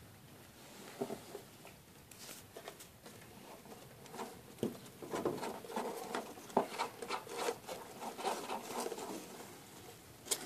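African pygmy hedgehog shuffling through dry wood-shaving and hay bedding: irregular crackling rustles, busiest from about four to nine seconds in.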